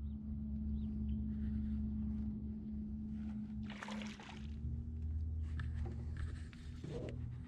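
A boat motor running steadily with a low hum, and a brief rushing noise about four seconds in.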